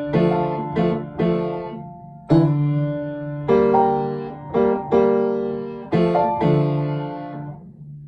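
Piano duet playing a slow passage of full chords, each struck and left to ring and fade before the next, with the last chord dying away near the end.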